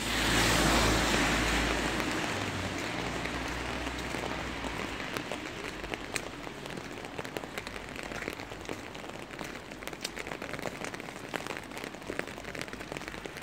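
Rain falling steadily, with many drops ticking close by. A loud rushing swell with a low rumble at the very start fades away over the first three seconds.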